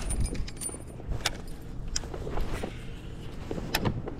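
Scattered small clicks and knocks of fishing gear being handled on a kayak, about four sharp ones over a low rumble.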